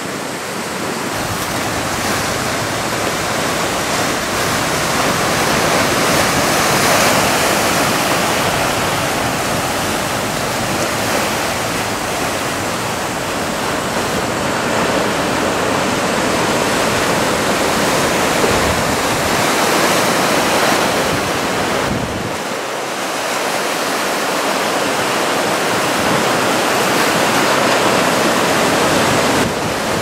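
Ocean surf from a typhoon swell: waves breaking and washing in as a continuous rushing noise that swells and eases.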